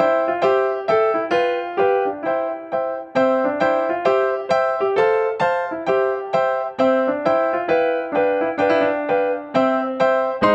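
Background piano music: a gentle melody of single notes struck at an even pace, about three a second.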